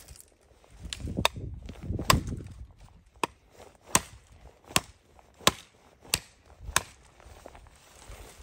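Large knife chopping birch branches: about eight sharp chops, roughly one every 0.7 s, with branches rustling in the first couple of seconds.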